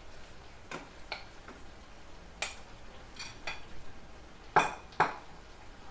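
Steel spoon clinking and scraping against a ceramic plate and a metal springform cake tin as crushed biscuit crumbs are pushed off into the tin. Scattered clinks, with the two loudest about half a second apart near the end.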